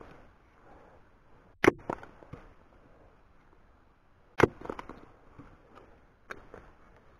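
Hatchet chopping into small blocks of wood set on a stump, splitting kindling: two sharp strikes, about a second and a half in and at about four and a half seconds, and a lighter one near the end, each followed by a few smaller knocks.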